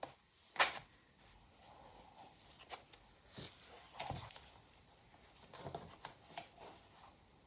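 Faint rustling and tapping of paper and card as a handmade junk journal is handled, with a sharper tap about half a second in.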